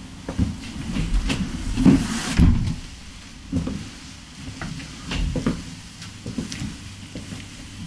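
A house door handled and shut, with a couple of solid thumps and clicks about two seconds in, then scattered light knocks of footsteps, over a low steady hum.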